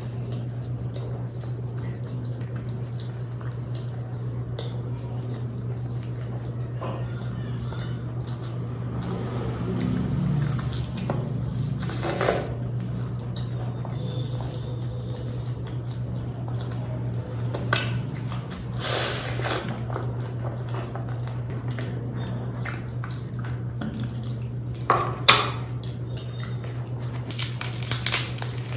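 Close-miked chewing and wet mouth sounds from eating kachori with spicy chole, with scattered sharp clicks over a steady low hum. Near the end, a crisp crackling as a flaky puff-pastry patty is broken apart.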